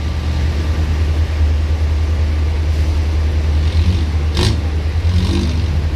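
Diesel engine of a heavily loaded light truck running hard as it struggles and fails to climb a ferry's loading ramp, over a steady low drone. A single sharp knock about four and a half seconds in.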